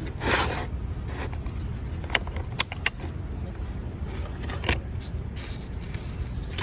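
A set of Torx bits and its case being handled: a rustle, then a few sharp clicks. A steady low hum runs underneath.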